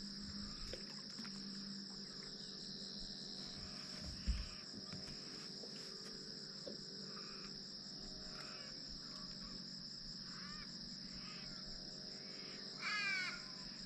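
Steady, faint, high-pitched chorus of insects calling on a warm evening. There is a single dull thump about four seconds in, and a short call of quick repeated pitched sweeps near the end.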